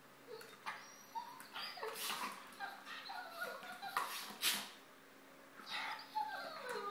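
Two dogs play-fighting, giving short, falling whines and yips, with a few sharp noisy bursts about two and four seconds in.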